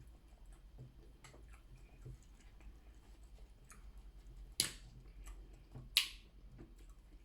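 Quiet eating sounds from a seafood boil: faint clicks and chewing, with two sharp cracks, one about four and a half seconds in and another about a second and a half later, the loudest sounds here.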